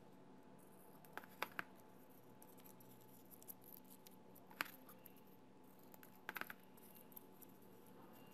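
Scissors snipping through folded origami paper: three quick snips about a second in, one near the middle, and two more about six seconds in, with a faint steady hum behind.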